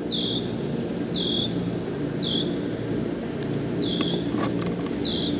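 A cricket chirping, a short note about once a second, over a steady low hum.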